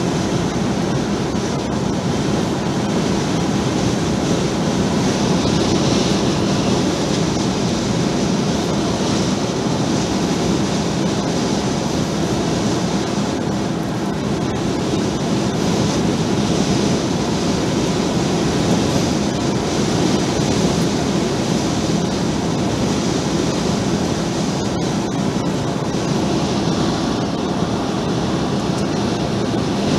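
Steady road and wind noise inside a vehicle cruising at highway speed: tyres rolling on asphalt and air rushing past the cab.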